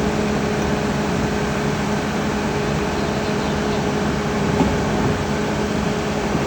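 Hyundai excavator's diesel engine running steadily at a constant hum while the machine works a heavy stone out of a well.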